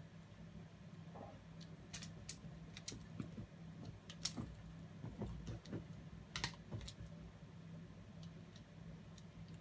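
Irregular light clicks and taps, about half a dozen, most between two and seven seconds in, over a steady low hum.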